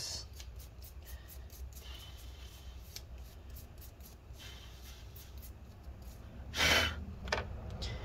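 Quiet workbench room tone: a steady low hum with scattered faint clicks, and one short burst of hissing noise about two-thirds of the way through.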